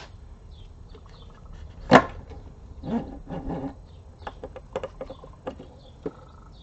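A sharp knock of metal on metal about two seconds in, then a scatter of light metallic clicks and clinks: tools and parts of an NP229 transfer case being worked apart while the front sprocket is removed.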